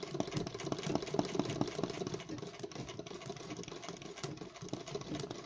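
Sewing machine running while stitching machine embroidery, a rapid clatter of needle strokes.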